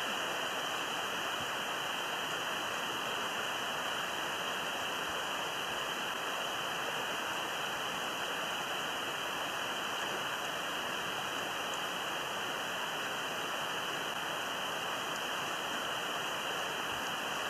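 Steady rushing of running water, an even hiss with no rises or breaks.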